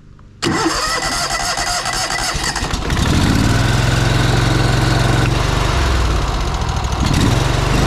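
Pressure washer's engine and pump running, with a hiss of spray. It starts abruptly about half a second in and settles into a steady, louder engine note about three seconds in, as the machine draws chemical solution through a 1.8 downstream injector.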